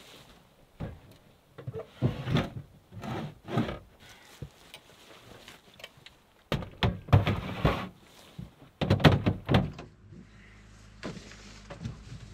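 Knocks, thuds and clattering of plastic storage bins and gear being loaded into a Jeep's open rear cargo area. The knocking comes in several spells, the busiest a little past the middle.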